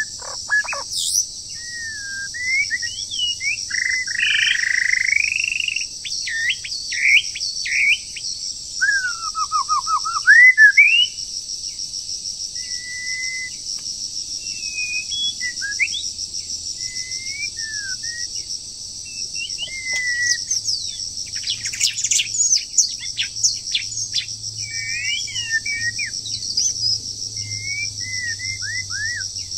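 Songbirds singing and calling in varied whistled phrases and quick chirps, with a dense run of sharp notes a little past the middle, over a steady high pulsing drone of insects.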